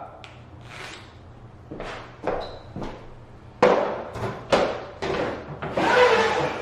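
Vinyl click-plank flooring boards being handled and laid down on a hard surface: a run of knocks and scraping sounds, the longest scrape near the end.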